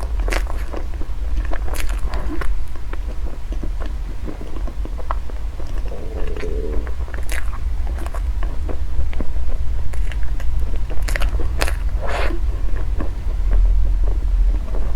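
Close-miked eating sounds: a person biting and chewing food, with sharp crunchy crackles and clicks scattered through, over a steady low hum.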